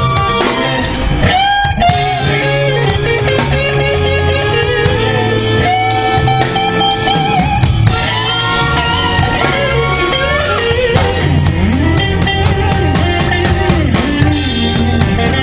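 A live show band playing an instrumental overture: drum kit with cymbals keeping the beat under guitar, bass and held lead notes.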